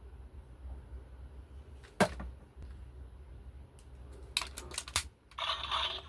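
Plastic clicks from a Super Sentai toy gun being worked: one sharp click about two seconds in, then a quick run of clicks near the end, after which the toy's speaker starts playing an electronic sound effect.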